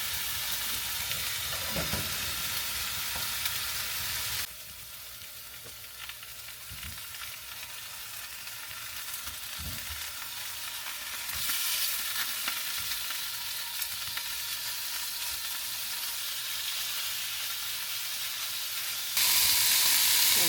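Fillet steak sizzling as it fries in a pan, a steady high hiss that drops quieter a few seconds in and grows louder again later. A few soft knocks sound under the sizzle.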